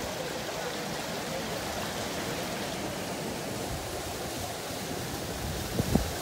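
Steady rush of water pouring down into a washout beneath collapsed road pavement, with a short low rumble near the end.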